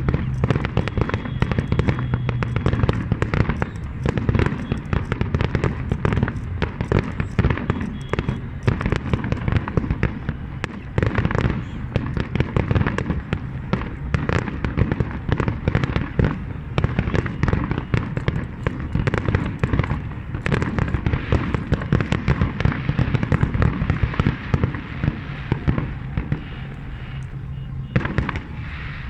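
Fireworks display: a dense, continuous barrage of bangs and crackles, many per second, thinning out near the end.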